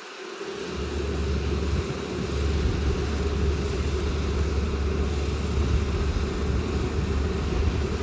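Kubota ER470 combine harvester running as it cuts rice, a steady engine and threshing drone that grows louder over the first two seconds as the machine comes nearer.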